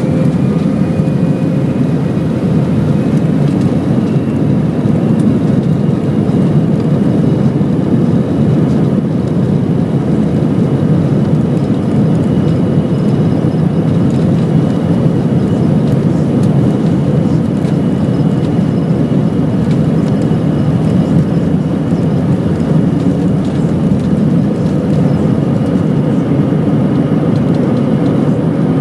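Steady, loud drone of a vehicle in motion, with a faint high whine that rises slightly at the start and then holds.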